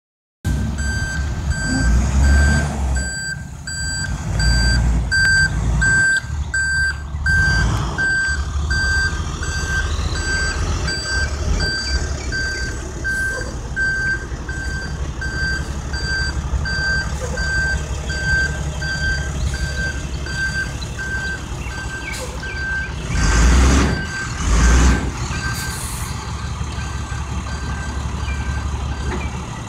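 Box truck's reversing alarm beeping at a steady, even rate as the truck backs up, over the low rumble of its engine. There are bursts of rushing noise, the loudest two about three-quarters of the way through.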